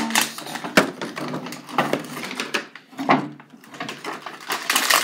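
Plastic bag packaging crinkling and crackling as it is pulled and torn open by hand, in irregular bursts that are busiest near the end.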